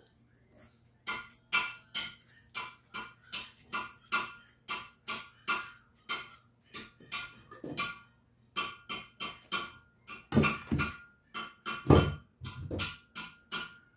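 Vegetable peeler scraping the skin off a raw potato in quick repeated strokes, about two a second. Near the end, two heavier knocks as the peeled potato is set into a stainless steel bowl.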